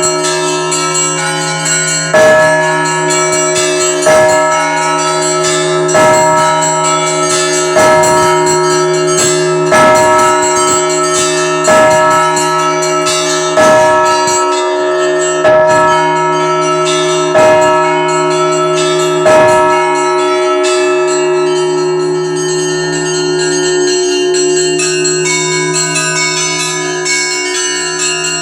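Russian Orthodox church bells ringing a festal peal: a deep bell is struck about every two seconds over rapid, continuous chiming of smaller bells. The deep strokes stop about two-thirds of the way through, and the smaller and higher bells ring on.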